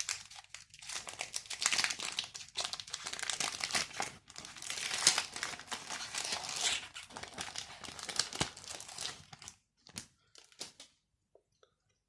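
Foil wrapper of a Yu-Gi-Oh booster pack crinkling and tearing as it is handled and opened: a dense run of crackles for most of the time, trailing off into a few separate crinkles near the end.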